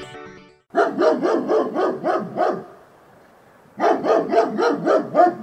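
A dog barking in quick, short barks, about four a second, in two runs separated by a pause of about a second.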